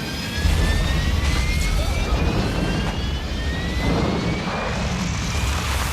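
Jet aircraft engines running up: several whining tones rise slowly together over a deep, steady rumble that comes in about half a second in.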